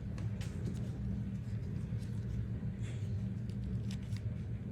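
A few faint, light clicks and taps of AirPods and their plastic case being handled, over a steady low hum.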